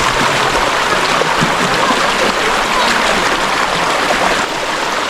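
Mountain valley stream rushing steadily, a loud even wash of running water, easing slightly near the end.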